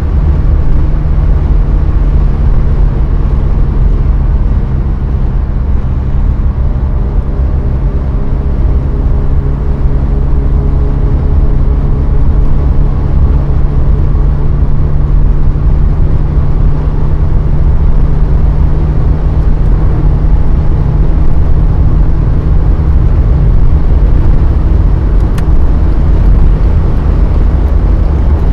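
Mercedes-Benz W124 200 E heard from inside the cabin at about 150–160 km/h: its M102 2.0-litre four-cylinder engine drones steadily under load, over constant wind and tyre noise.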